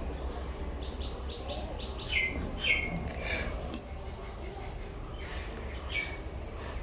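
Faint bird chirping: a run of short, falling chirps, clearest about two and three seconds in, with a single small click a little later.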